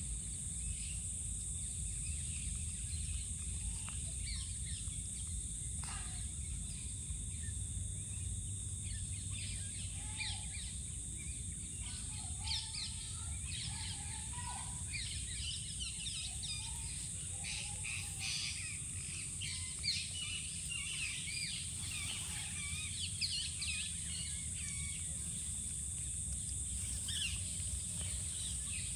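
Outdoor ambience with a steady low rumble and a steady high hiss, and many short high chirping calls coming thick from about ten seconds in, easing off after about twenty-four seconds.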